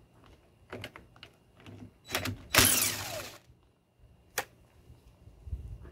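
Cordless impact gun with a Torx T30 bit running for a little over a second to back out a plastic shield screw, its pitch falling as it winds down. A few light clicks of the tool being handled come before it and one sharp click after.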